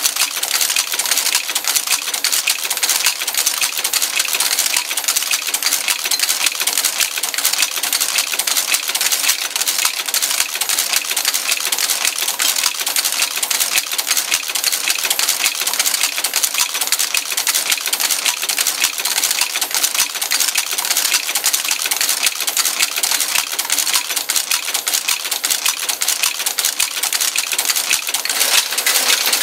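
Monotype composition caster running, casting type from a punched paper ribbon: a fast, steady clatter of many small metallic clicks.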